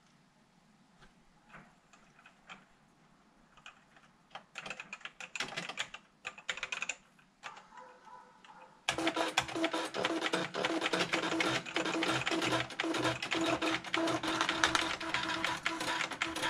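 Typing on the keyboard of a Panasonic Penwriter electronic typewriter: scattered soft key clicks that build to a quicker run of keystrokes. About nine seconds in, background music starts abruptly and is louder than the typing.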